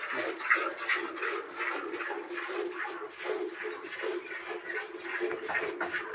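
Milk squirting into a steel pail during hand-milking, in rhythmic spurts about two or three a second.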